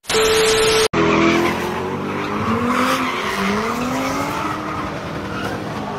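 A TV-static transition effect: just under a second of loud hiss with a steady beep, cut off sharply. Then a car doing a burnout in tyre smoke, its engine revving up and down while the tyres squeal.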